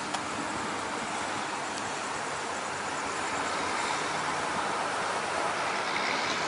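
Steady rushing road and wind noise of a car driving, heard from inside the moving car.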